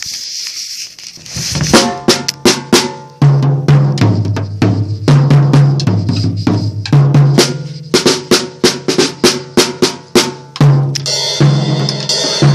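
Acoustic drum kit hit with wooden sticks: a fast, uneven stream of strikes on the toms and snare, the toms ringing low, with cymbals washing at the start and again near the end.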